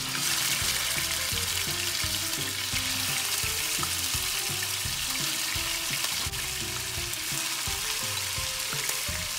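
Marinated chicken pieces sizzling as they shallow-fry in hot oil in a nonstick wok: a steady frying hiss.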